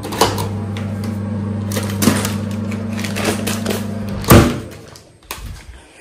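Built-in microwave oven running with a steady low hum and a few light clicks. The hum stops about four seconds in with a loud knock, and scattered small handling clicks follow.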